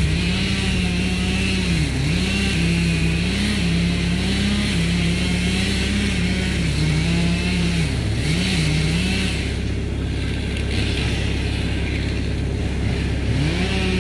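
An engine running hard and revving up and down, its pitch sagging and recovering again and again under varying load.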